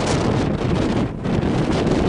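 Strong wind buffeting the camera's microphone, a loud, rumbling rush that eases briefly about a second in.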